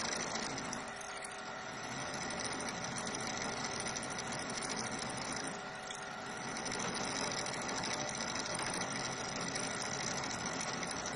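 Drill press running steadily, its 2.5 mm bit cutting into a steel edge filter in the fuel inlet of a Denso common-rail diesel injector.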